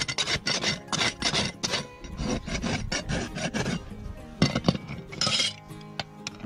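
Farrier's hoof rasp filing a horse's hoof wall in a run of quick scraping strokes, about three a second, then two sharp knocks about four and a half seconds in and one last scrape.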